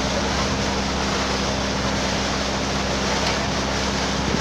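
Passenger boat under way: the engine's steady hum under the rush of churning wake water and wind.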